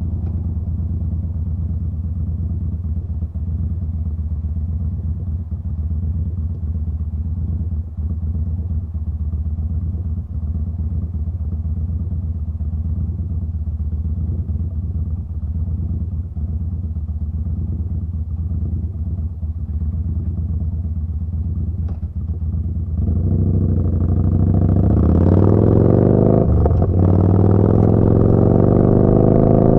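Yamaha Bolt's air-cooled V-twin through a Vance & Hines slip-on exhaust, running steadily at low revs for most of the time. Near the end it opens up and accelerates, the note getting louder and climbing in pitch, with a brief break partway through that fits a gear change.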